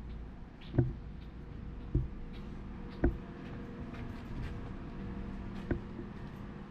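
Footsteps of someone walking, heard as dull thuds about once a second, over a steady low hum.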